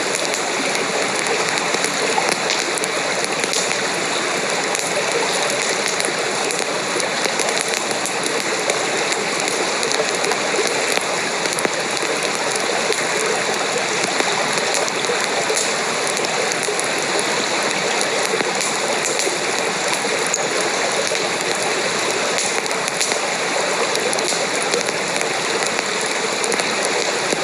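Steady rain: an even, dense hiss of falling drops at a constant level, with a few faint ticks.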